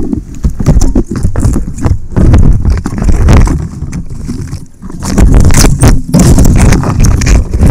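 Leaves and branches rustling and knocking against an FPV drone's onboard camera caught in a tree, loud and irregular with heavy buffeting. About six seconds in, the drone tumbles through the branches.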